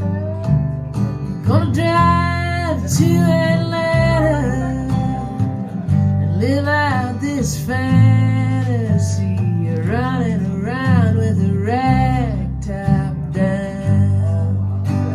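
Recorded music played back through hi-fi loudspeakers in a demo room: guitar and bass, with a melodic line that slides and bends in pitch above them.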